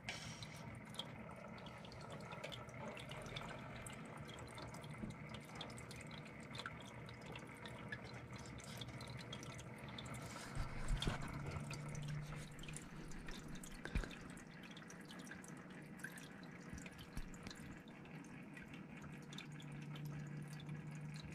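Faint aquarium water trickling and dripping, with many fine ticks. A low steady hum joins it about halfway through and again near the end, and there are a couple of light knocks, the sharpest about two-thirds of the way in.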